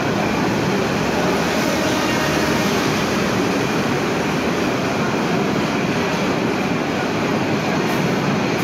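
Bangladesh Railway InterCity passenger coaches rolling past at steady speed: a continuous rumble and rattle of wheels on the track.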